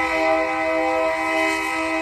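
Train air horn sounding a steady chord of several notes together, held at a constant pitch.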